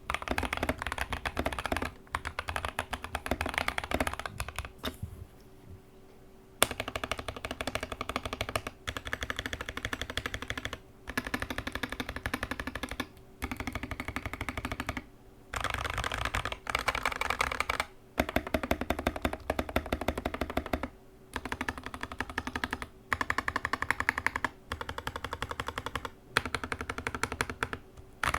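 Rapid typing on a GK61x mechanical keyboard fitted with Gazzew Boba U4T tactile switches, a fast stream of keystrokes in runs of a second or two with brief pauses between them, and a longer lull about five seconds in.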